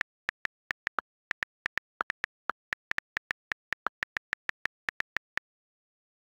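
iPad on-screen keyboard key clicks, one short click per key tap as a phrase is typed, about five a second, stopping a little after five seconds in.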